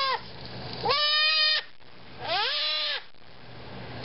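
Goat kid bleating in distress as a hot disbudding iron is pressed on its horn bud: the end of one call, then two more short calls about a second apart.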